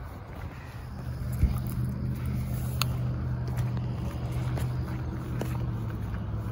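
A steady low motor hum sets in about a second in and holds level, with a single sharp knock shortly after it starts.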